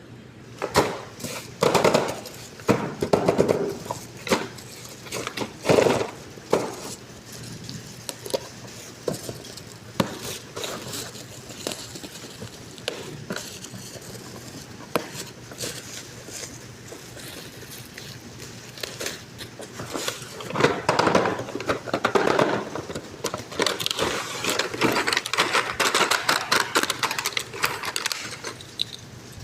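Toy packaging and toy cars being handled: scattered clicks and knocks with bursts of crinkling and rustling, densest near the end.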